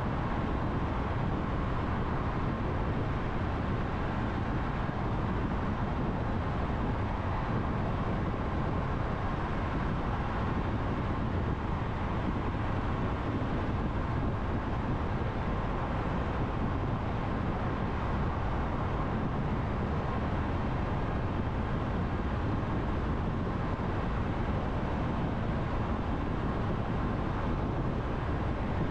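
Steady, deep rumble of tyre and road noise with engine hum from a car driving at expressway speed through a road tunnel.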